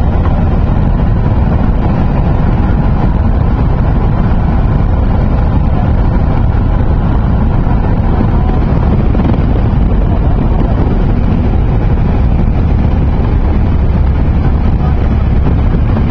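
Cessna light aircraft's engine and propeller heard from inside the cabin in flight: a loud, steady low drone with wind rushing over it.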